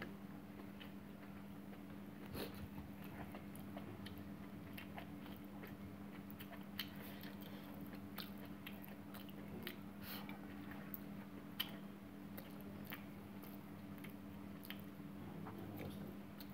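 Faint close chewing and mouth sounds of a man eating a pork and rice dish with his fingers: scattered soft clicks and smacks, over a steady low hum.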